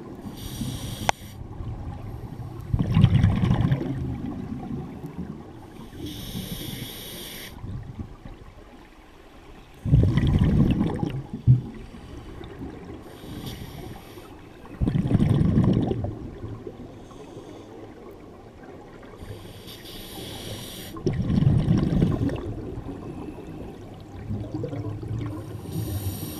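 Scuba diver breathing through a regulator underwater: a short hiss on each inhale alternating with a louder, low bubbling rush on each exhale, one breath about every six seconds.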